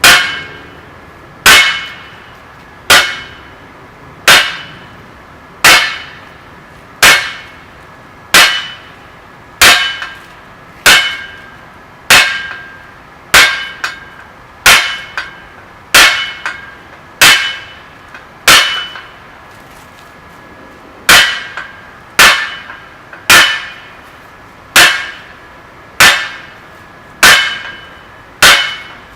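Hammer blows on 25 mm square mild steel stock on an anvil, each with a short metallic ring. The blows come steadily about every second and a half, with one longer pause about two thirds of the way through.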